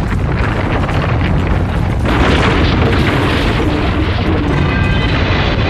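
Rumbling, crashing sound effect of the ground splitting and debris falling as the land beneath a building subsides, growing louder about two seconds in, with music underneath.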